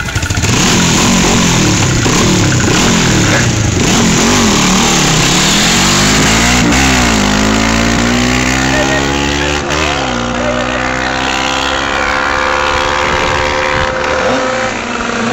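Tuned scooter engine revved hard and accelerating away, its pitch rising and dropping several times before falling slowly as it pulls off into the distance.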